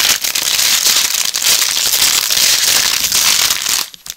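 A block of dry instant noodles being crushed by hand inside a sealed plastic bag of Ppushu Ppushu noodle snack: dense, loud crunching and crinkling that stops suddenly near the end.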